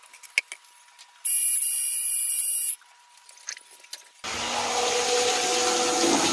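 A small electric motor starts with a high-pitched whine for about a second and a half, stops, then runs again from about four seconds in with a louder, steadier rushing sound. A few light clicks come before it.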